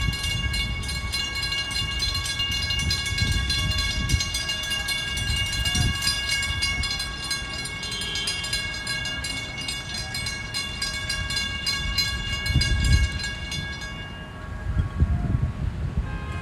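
Railroad grade-crossing warning bell ringing in rapid, even strokes, over low traffic rumble. The bell stops about 14 seconds in.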